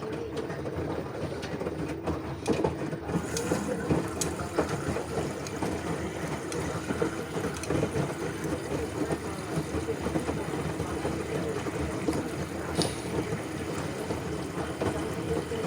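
LG washing machine running a wash, with a steady churning rush of water in the drum and a couple of short clicks.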